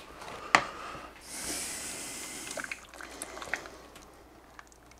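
A spoon knocking against a cooking pot as a simmering chowder is stirred: a sharp clink about half a second in, a soft hiss for about a second and a half, then a few lighter taps, with the liquid in the pot sloshing.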